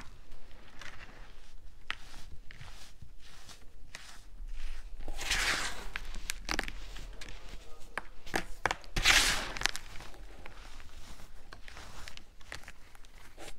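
Clumps of baking soda crunched and squeezed by hand, making a string of short crisp crackles. There are two longer, louder crunching squeezes about five and nine seconds in.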